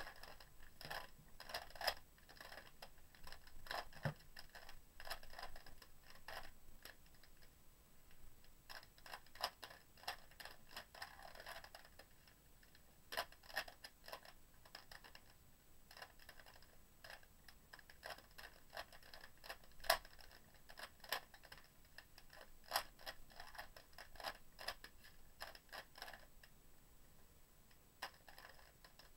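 Shengshou Wind speed cube being turned quickly in a solve: runs of rapid plastic clicks and clacks as the layers turn, with short pauses about twelve seconds in and again near the end.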